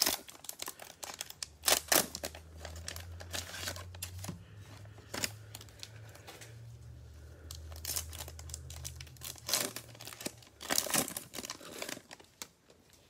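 Plastic wrapper of a football trading-card cello pack being torn open and crinkled by gloved hands, in irregular bursts of crackling. A faint low hum runs underneath for most of it.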